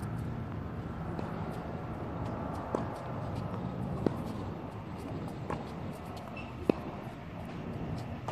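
Tennis rally: the ball is struck by rackets and bounces on the hard court, a sharp pop about every second and a half, the loudest one about seven seconds in, over a steady outdoor hiss.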